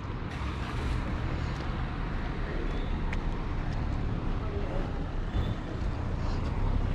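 Street ambience dominated by passing road traffic, a steady low rumble of vehicles, with voices of passers-by mixed in.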